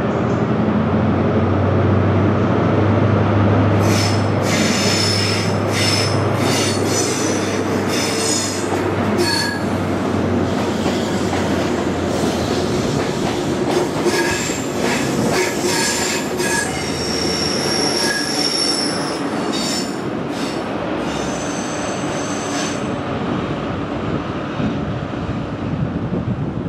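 A diesel passenger train moving slowly on curved track, a low engine hum at first. About four seconds in, the wheels start squealing, shrill tones coming and going over and over until near the end.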